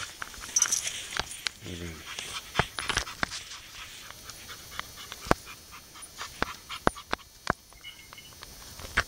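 Pit bull panting while being handled, with many sharp clicks from its metal chain and collar.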